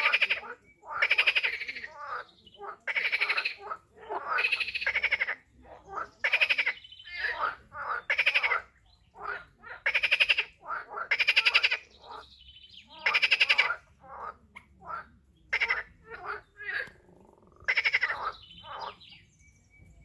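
Frogs calling from a pond: rapidly pulsed, rasping croaks, each under a second long, repeated over and over with short gaps between them.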